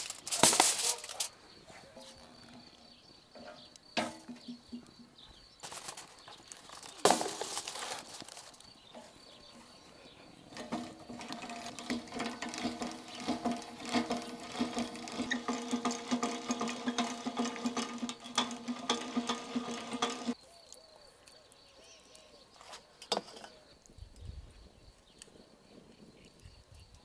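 A metal tray knocks down onto a steel grill shelf. About ten seconds in, the hand-cranked chain-and-sprocket drive of a grill's skewer rotisserie turns for about ten seconds with a steady mechanical whir and rattle, then stops suddenly.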